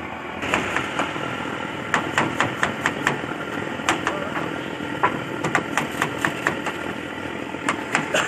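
Crinkle-cut knife chopping raw potatoes into wavy chips on a cutting board: a quick, irregular run of sharp knocks as the blade strikes the board, two to three a second, starting about half a second in, over a steady background hum.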